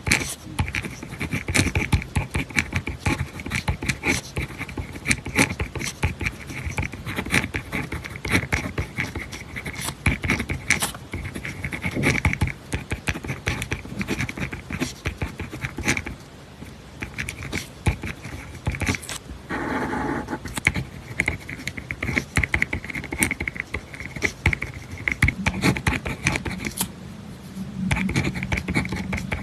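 Pen writing on paper: a dense run of quick scratching strokes, with a brief lull about halfway through and a low steady hum joining near the end.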